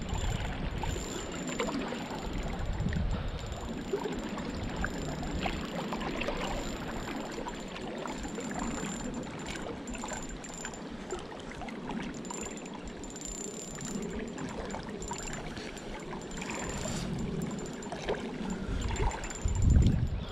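Shallow river water running and trickling, with scattered small clicks as a spinning reel is wound in. A louder low rumble near the end.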